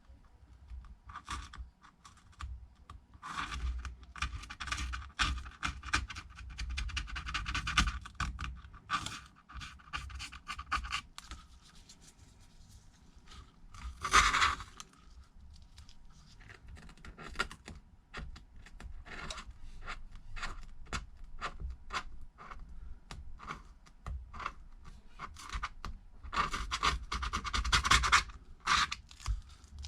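A hand tool scraping old screen adhesive off the edge of an iPad Air's housing in short, irregular strokes, coming in bunches with one louder scrape about halfway through.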